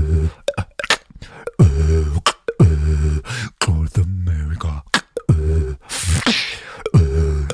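Vocal beatboxing into a microphone: sharp click and snare-like hits alternate with low, buzzing hummed bass notes that swoop down in pitch as each begins, in a steady groove, with a breathy hiss about six seconds in.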